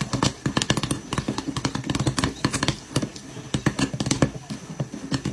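Popcorn in a glass-lidded pan being gently shaken over a gas flame: a quick, irregular patter of pops and clicks from the kernels and the popped corn knocking against the pan and lid.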